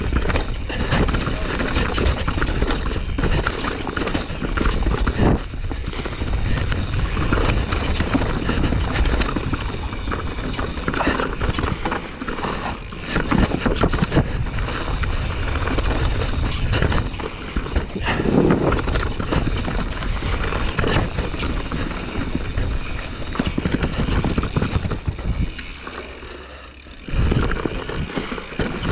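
Mountain bike riding fast down a dirt and rock forest trail: tyres running and crunching over the ground, with frequent knocks and rattles from the bike over roots and stones. It eases off briefly near the end, then picks up again.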